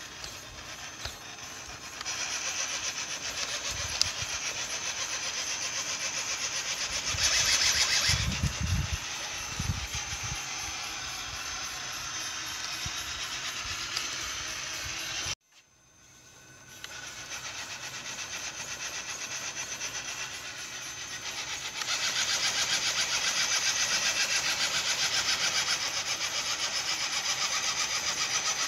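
RC rock crawler's electric motor and geared drivetrain whirring steadily as it crawls up a steep wooden pallet ramp, louder in places with the throttle. Near halfway the sound cuts out abruptly, then the whir builds back up.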